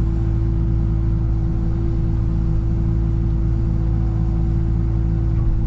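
Excavator engine running steadily, heard from inside the operator's cab: an even low hum with a constant whine above it.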